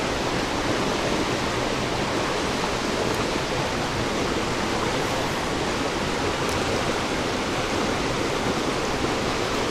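Creek water rushing steadily over rocks, an even unbroken hiss.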